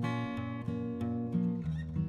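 Background music: acoustic guitar picked and strummed, with notes struck every half second or so.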